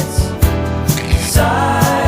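A song with a steady drum beat of about two hits a second and a singing voice that holds a long note in the second half.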